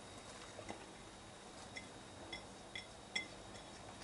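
Faint, light clinks of a plate touching a stainless steel pot, about five spread over a few seconds, as shredded chicken is tipped off the plate into the pot.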